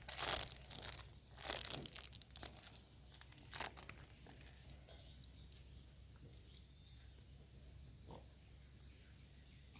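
Chocolate wrapper being torn open and crinkled, in three short bursts over the first four seconds.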